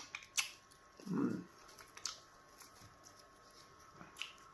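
Quiet hand-eating sounds at a meal of pounded yam fufu: a few small, sharp, wet clicks and smacks from mouth and fingers, with a short low murmur about a second in.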